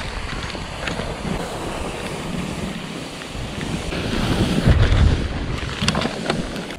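Skis sliding through snow on a downhill run, with wind buffeting the action camera's microphone, heavier rumbling about two-thirds through, and a few sharp clicks near the end.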